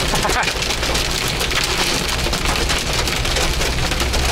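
Hail drumming on a truck: a dense, continuous patter of small hits, with a low steady engine hum underneath.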